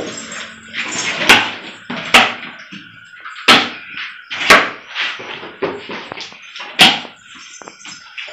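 Utility knife slitting packing tape on a cardboard box, the tape and cardboard giving about five sharp cracks with scratchy rasping between them.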